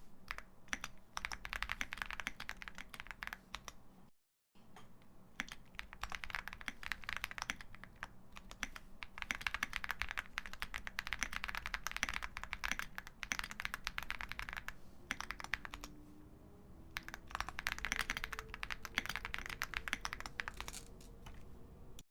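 Fast typing on a custom mechanical keyboard: rapid clicky keystrokes in bursts of a few seconds, with short lulls between them. The sound cuts out completely for a moment about four seconds in.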